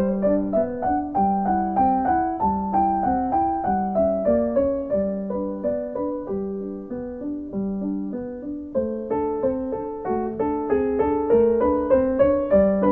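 Background piano music: a steady flow of single notes over a recurring low note that returns about once a second.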